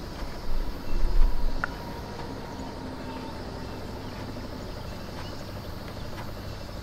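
Cardboard box and paper leaflet being handled: a few low thumps in the first second and a half, then a short click, over a steady low background rumble.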